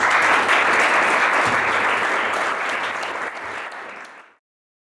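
Audience applauding, starting loud and tailing off gradually, then cut off abruptly a little over four seconds in.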